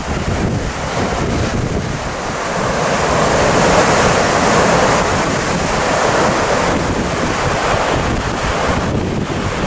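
Heavy surf churning and breaking on a rough sea, with wind buffeting the microphone. The surf swells loudest about four seconds in.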